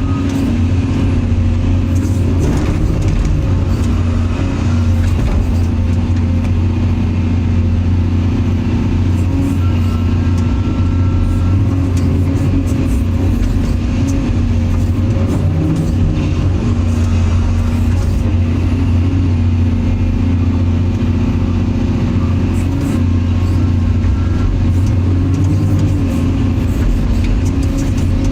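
Excavator's diesel engine running steadily at an even pitch, with scattered faint clicks and clanks.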